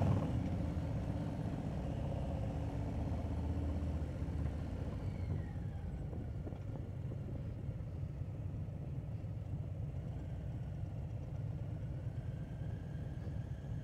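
Harley-Davidson touring motorcycle's V-twin engine running at road speed with wind and road noise, heard from the rider's seat; the engine note drops after about four seconds.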